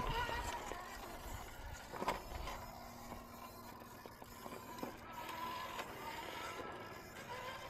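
Electric class 2 RC rock crawler's motor and geartrain whining as it crawls over rock, the pitch drifting up and down with the throttle. A few sharp knocks and scrapes from the tyres and chassis on the rock.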